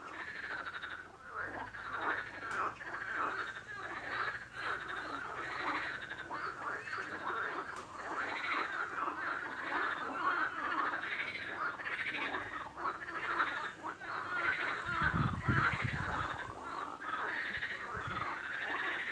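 Many frogs calling at once, their short calls overlapping in a continuous chorus, with a brief low-pitched sound about fifteen seconds in.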